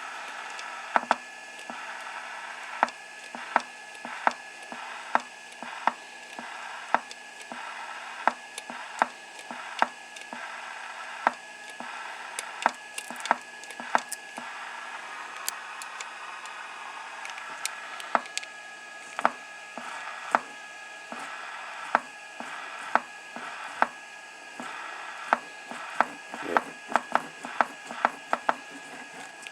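Galaxy DX979 CB radio being keyed on and off over and over with the microphone: many sharp, irregular clicks over a steady hiss, coming thicker near the end. The radio keys only some of the time, a sign of a bad wire, probably in the mic jack.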